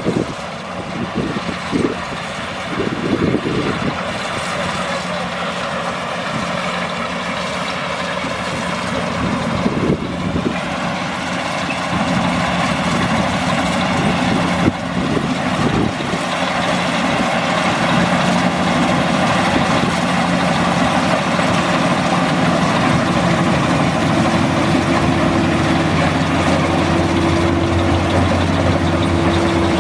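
Maxxi Bimo 102 rice combine harvester running steadily as it works, its engine and machinery noise continuous throughout. It grows gradually louder, and a steady, even hum settles in during the last several seconds.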